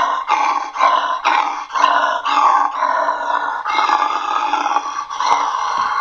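A person roaring and growling into an empty paper towel tube to imitate an allosaurus: a run of short roars with brief breaks between them, then a longer held roar about four seconds in.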